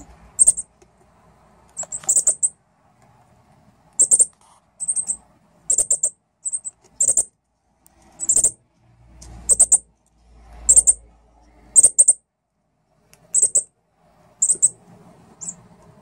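Fledgling northern cardinals giving short, high chip calls, singly or in quick pairs, about once a second.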